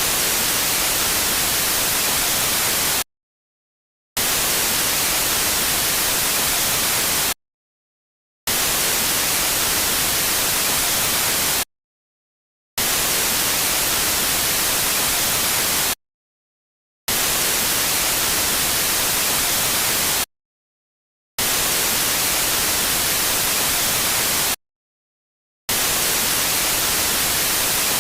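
Television static: an untuned TV's white-noise hiss, heavy in the highs, coming in bursts of about three seconds broken by about a second of silence, seven times over.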